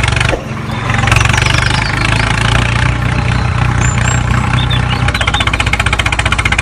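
Tractor engine running with a rapid, even firing rhythm; about five seconds in its note shifts and the pulsing grows stronger.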